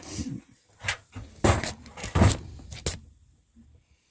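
A few sharp knocks and clunks of hard objects being handled in a small room, five or so over about two seconds, then it goes quieter.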